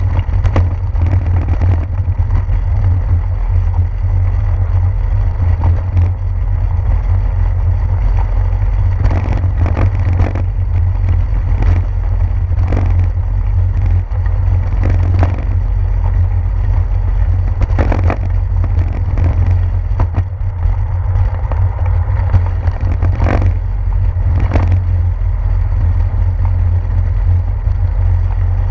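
Bicycle riding over a brick-paved street, heard through a handlebar-mounted GoPro: a steady low wind and vibration rumble with sharp rattling knocks every second or two as the wheels jolt over the bricks.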